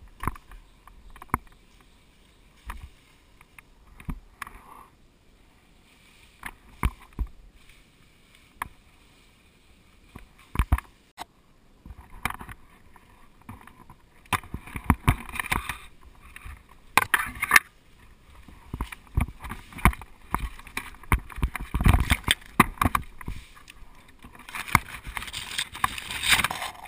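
Red oak leaves and twigs rustling and scraping against the climber's head-mounted camera as he moves through the canopy, with scattered sharp clicks and knocks. Sparse at first, then denser and louder about halfway through, heaviest near the end.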